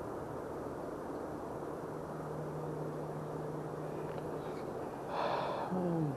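Strong wind buffeting the microphone in a steady low rumble. A faint steady hum runs through the middle, and a brief louder sound with a falling pitch comes near the end.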